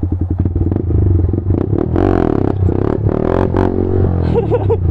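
Yamaha MT-15's single-cylinder engine through a full-system aftermarket exhaust, running at steady low throttle and then revved hard twice, rising and falling in pitch, about two seconds in, as the rider tries a wheelie.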